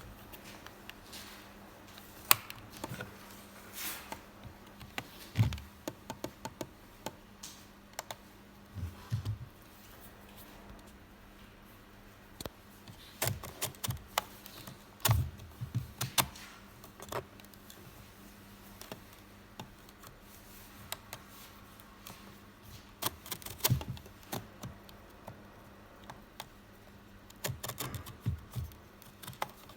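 Scattered plastic clicks and occasional dull knocks: a Philips alarm clock being handled and its buttons pressed, in irregular bursts with pauses between.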